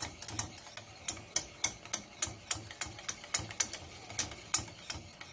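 Wire whisk rapping against the sides of a stainless steel saucepan at an even pace of about three taps a second, beating egg yolks and sugar over a steaming water bath as the mixture turns foamy.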